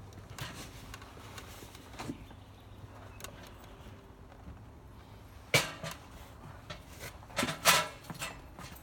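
Faint steady background, broken by a sharp knock about halfway through and a short cluster of knocks and clatter near the end.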